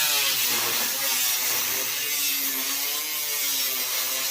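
Power saw cutting through metal roofing sheet, throwing sparks: a continuous harsh hiss with a motor whine that wavers in pitch as the blade loads in the cut.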